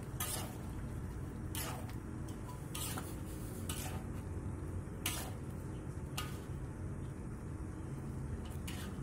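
Metal ladle stirring chicken pieces in gravy in a large wok, clinking and scraping against the pan about seven times at irregular intervals, over a steady low hum.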